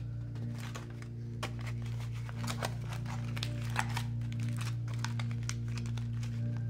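Aluminium foil crinkling and crumpling in quick irregular crackles as it is wrapped and pressed around a potato by hand, over a steady low background drone.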